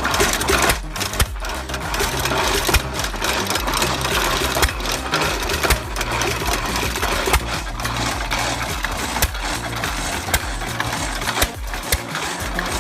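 Ottawa log saw running, its single-cylinder engine driving the reciprocating saw blade with a steady, rhythmic mechanical clatter.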